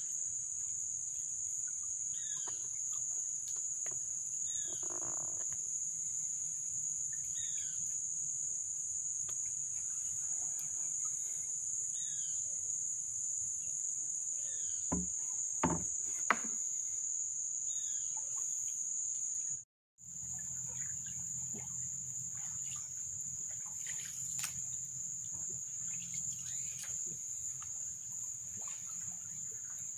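Steady, high-pitched chorus of insects in flooded rainforest, with short falling chirps repeating every second or two. There are a few sharp knocks near the middle, and the sound cuts out briefly about two-thirds of the way through.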